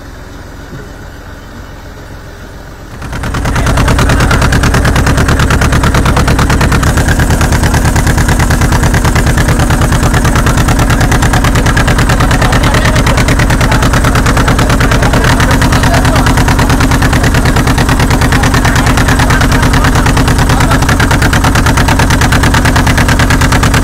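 A loud, steady engine running close by, coming in abruptly about three seconds in.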